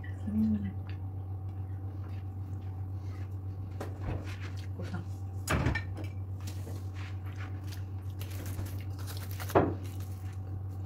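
A china plate lifted off a foil-covered glass baking dish and set down on the table with a knock about halfway through, then aluminium foil crinkling as it is pulled open, and a sharper knock near the end, over a steady low hum.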